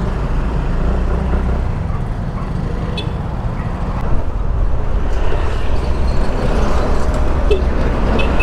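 Yamaha Mio Gear 125 scooter running, with a steady low rumble of engine and road noise. A few short high chirps come about three seconds in and again near the end.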